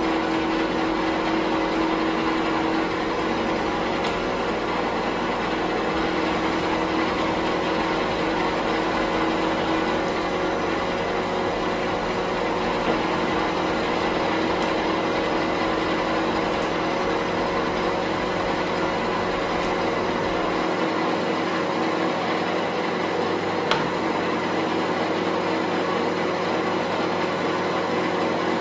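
Bench metal lathe running steadily, its motor and drive giving an even hum with a few constant tones; the lowest part of the hum drops away about two-thirds of the way in.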